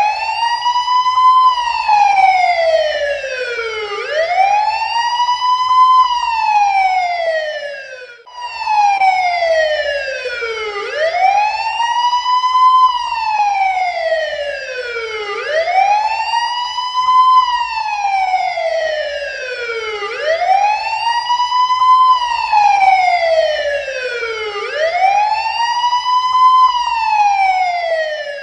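Police siren wailing in a steady cycle: the pitch climbs quickly, then slides down more slowly, repeating about every four and a half seconds. The sound drops out briefly about eight seconds in, then starts again.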